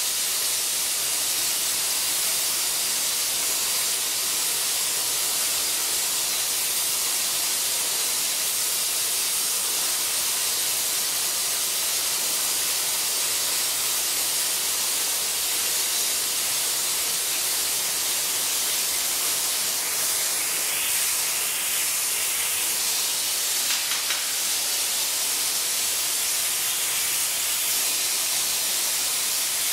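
Burner flame on a glassblowing lathe hissing steadily as it heats the glass frit and seal before they are pulled.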